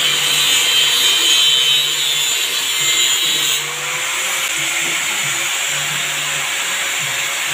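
Angle grinder cutting into the steel shell of a motorcycle exhaust muffler: a steady high grinding hiss over the whine of the grinder's motor. About three and a half seconds in the grinding lightens and the motor's pitch rises a little.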